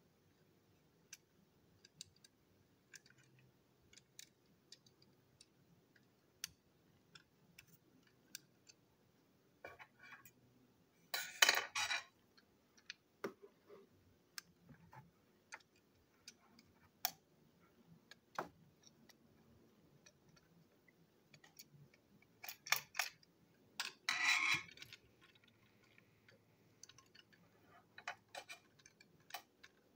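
Plastic toy-train parts being handled and fitted together: scattered light clicks and taps, with two louder clattering rattles of about a second each, one a little over a third of the way in and one about four-fifths of the way through.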